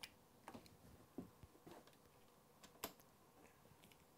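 Faint metallic clicks of an Allen key turning the seat-clamp bolts under a bicycle saddle: a handful of separate ticks, the sharpest nearly three seconds in.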